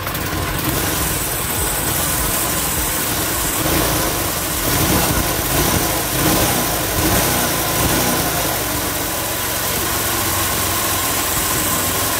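Small single-cylinder motorbike engine running through a fibre-packed muffler, ticking over with the revs rising and falling a few times about four to eight seconds in. It is a freshly tuned engine that the owner says runs well.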